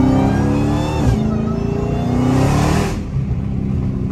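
Dodge Charger Hellcat's supercharged V8 accelerating hard: the engine note climbs, dips at a gear change about a second in, climbs again, then falls away to a lower, steadier note near three seconds.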